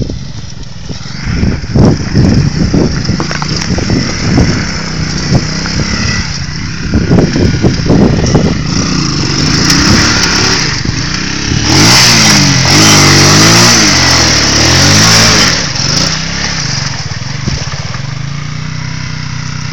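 Bashan 200cc ATV's single-cylinder engine revving up and down again and again as the quad churns through deep mud and shallow water. About halfway through, a loud rushing splash of water and mud joins the hard revving for a few seconds, then the engine settles to a steadier run.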